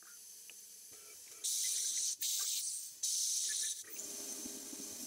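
Three short, sharp hissing blasts of spray inside a CNC milling machine's enclosure, each a little under a second long. About four seconds in they give way to a steady spraying noise with a low hum as coolant jets run over the workpiece.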